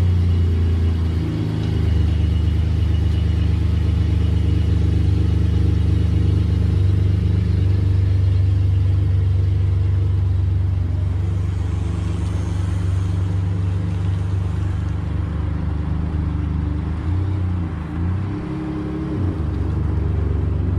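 Pickup truck engine running as the truck backs away and turns. The low engine note holds steady for most of the time, then rises and falls near the end as it manoeuvres.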